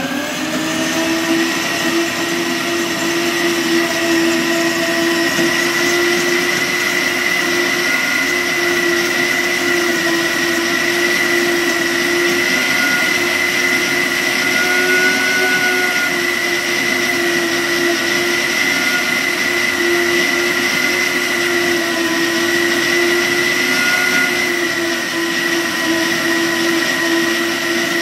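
Moosha commercial blender running steadily at high speed inside its clear sound enclosure, blending milk, cappuccino powder and ice cubes into an iced drink. An even whine that holds its pitch throughout.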